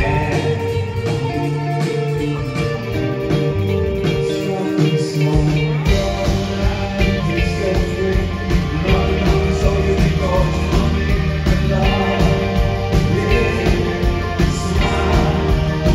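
Rock band playing live with electric guitars; the bass and full low end come in about five seconds in and the band plays on.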